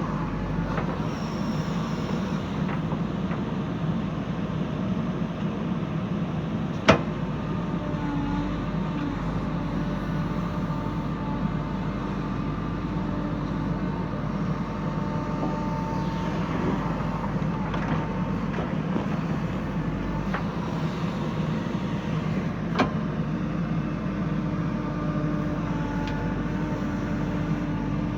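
JCB 3DX backhoe loader's diesel engine running steadily while working, its pitch shifting a little from time to time. Two sharp metallic knocks stand out, one about 7 seconds in and a weaker one about 23 seconds in.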